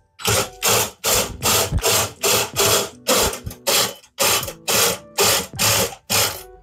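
Hand ratchet wrench worked back and forth in quick strokes, a short burst of clicking on each stroke, about two to three strokes a second, while unbolting parts of a car's front end.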